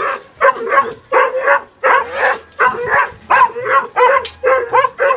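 Corgi barking over and over at a gate, about two barks a second.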